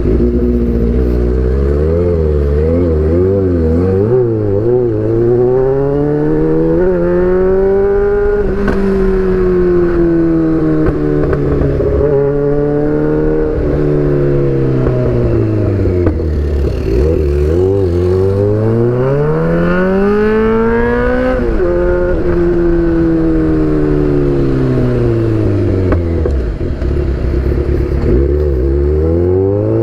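Kawasaki Z800's inline-four engine through an Austin Racing aftermarket exhaust, accelerating and slowing several times. Its pitch climbs for the first eight seconds or so, falls away, rises again, drops and climbs once more near the end.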